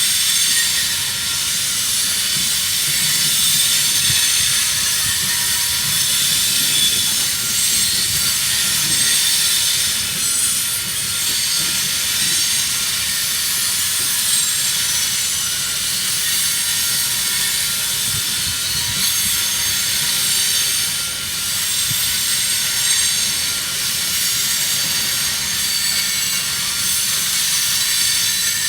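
Union Pacific coal train rolling past a grade crossing: a steady, loud rush of steel wheels on rail, with a high hiss over a low rumble and clatter.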